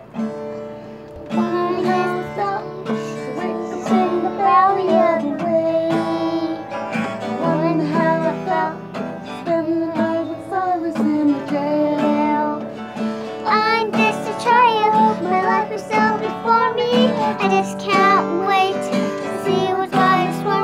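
A child singing a children's song about Noah over guitar accompaniment.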